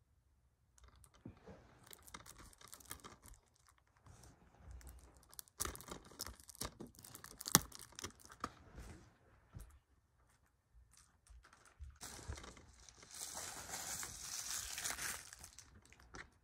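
Plastic wrapping being torn and peeled off a DVD case, crinkling and crackling in irregular bursts, with one sharp snap about halfway through and a longer stretch of crinkling near the end.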